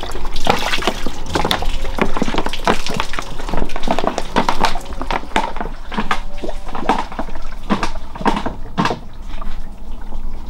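Water poured from a plastic bottle into the car's drain channel under the open bonnet, splashing and dripping irregularly, as a water-leak test of a freshly siliconed seam.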